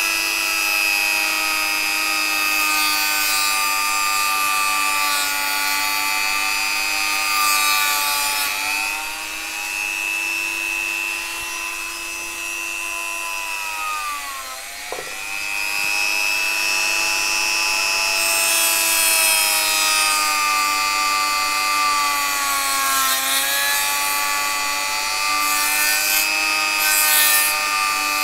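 Small handheld rotary tool running with a steady high whine while its cotton buffing wheel is pressed against a bar of polishing compound to charge it. The motor's pitch sags under the load about halfway through and again later, with a scratchy rubbing as the wheel bites into the compound.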